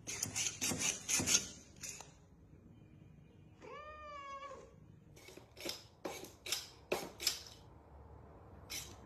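Domestic cat meowing once, about four seconds in: a single call that rises and then falls. Around it comes a run of sharp clicks and scrapes, several in the first two seconds and more after the meow.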